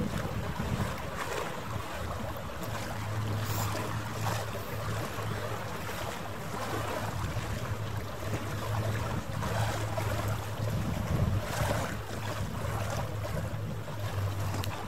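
Wind rushing over the microphone by the harbour water, with a steady low engine hum from a passing boat that comes in a few seconds in and fades just before the end.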